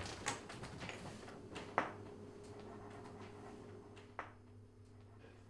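A few scattered light knocks and clicks over a faint steady low hum; the loudest knock comes a little under two seconds in, and another comes about four seconds in.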